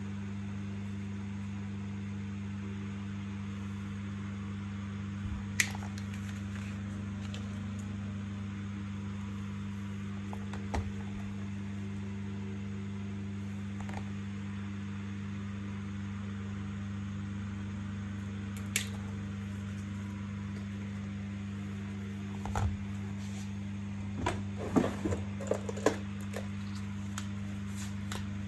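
Steady low hum with occasional sharp clicks and knocks, several in quick succession near the end.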